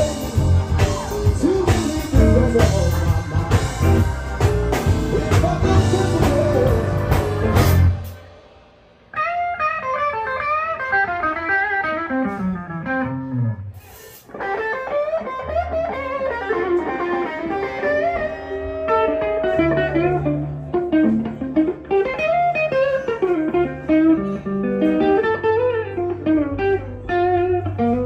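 A live blues band plays full and then breaks off abruptly. Solo guitar follows, playing blues lines with bending notes, and low bass notes come back in under it about halfway through.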